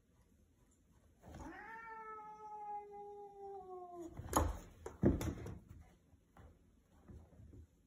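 Domestic cat giving a long, low warning yowl for about three seconds, its pitch sagging slightly at the end, then two sharp, loud spits about a second apart during a face-off with another cat.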